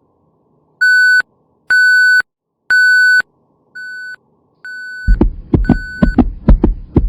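Hospital patient monitor beeping about once a second: three loud beeps, then softer ones. About five seconds in, a fast, thumping heartbeat sound effect starts under the beeps.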